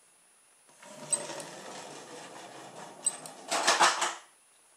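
Rubber-band-powered toy car whirring as it runs across a wooden floor. Two sharp clicks about two seconds apart are the speed trap's relay starting and stopping the digital stopwatch, and a louder clatter follows near the end.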